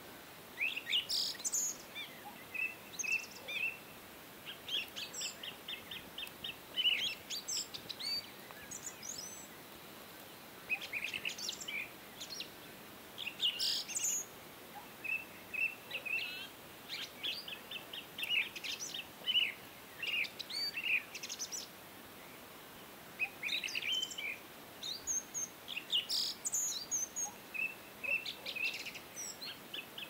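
A flock of house sparrows chirping: short chirps, often in quick runs of several, coming in bunches with brief pauses.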